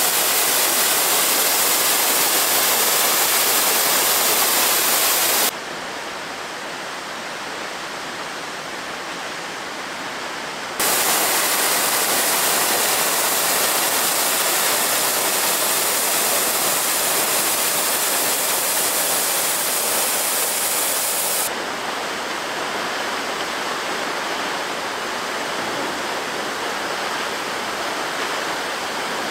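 Steady rush of water falling down a partly frozen waterfall. Its level jumps abruptly three times, dropping about five seconds in, rising again near eleven seconds and dropping once more a little after twenty seconds.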